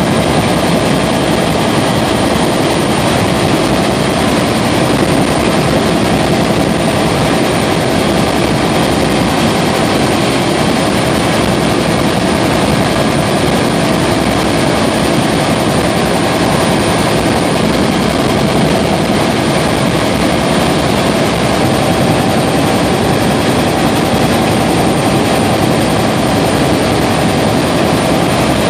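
Helicopter in flight heard from inside the cabin: a loud, steady drone of rotor and engine noise with a few faint steady whining tones running through it.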